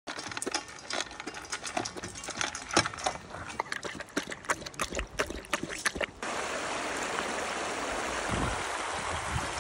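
A Doberman lapping water from a collapsible bowl: a quick, irregular run of wet clicks for about six seconds. Then a shallow river rushes steadily over rocks.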